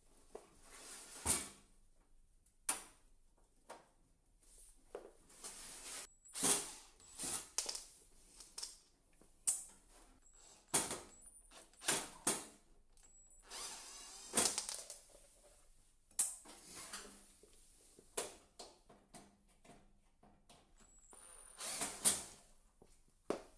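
Cordless drill-driver backing out screws from the casing of an electric panel heater: a few short runs of its thin high whine among clicks and knocks of the tool against the plastic and metal housing.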